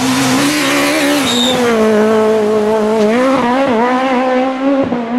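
Peugeot 306 Maxi kit car's 2.0-litre four-cylinder rally engine running hard at high revs. Its note holds high with small rises and falls, and dips and wobbles about three and a half seconds in.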